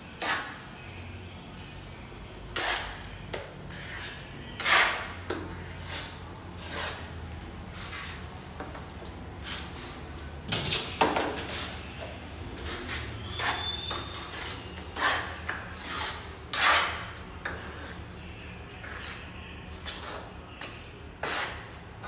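Steel trowel scraping and slapping wet cement mortar on a mortar board and from a plastic bucket while joints under granite stair treads are packed. The strokes are irregular, mostly a second or two apart, with a busier, louder run about halfway through, over a faint steady hum.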